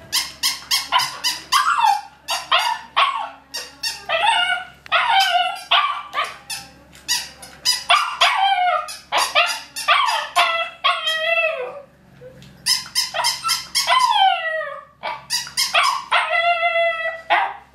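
Siberian husky puppy barking and yipping many times in quick succession, with some longer calls that fall in pitch and a long held call near the end.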